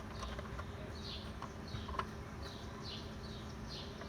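A bird chirping over and over, short downward-sliding chirps about twice a second, with a couple of light clicks from handling something.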